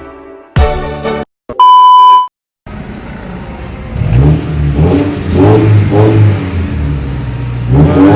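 Car engine running and accelerating, its pitch rising as it revs up twice. It comes after a loud steady beep and the tail end of music near the start.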